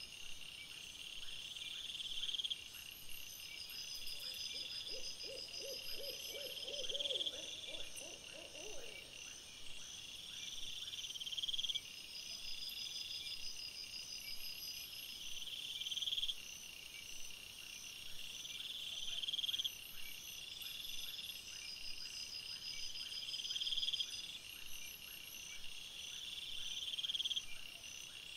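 A high, pulsing trill repeats every four to five seconds, each one swelling and then cutting off sharply. About four seconds in, a low, quavering hoot comes in and lasts about four seconds.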